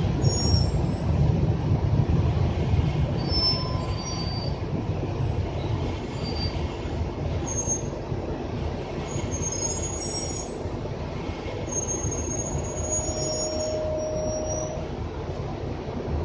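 Cabin noise of an RTS transit bus underway: a steady low rumble of engine and road, heaviest in the first few seconds and then easing. Short high squeaks and squeals come and go throughout, with one longer squeal about three-quarters of the way through.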